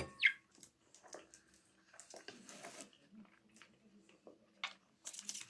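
Pet budgerigar giving one short, sharply falling chirp about a quarter second in, amid soft clicks and scrapes of a spoon in a plastic container.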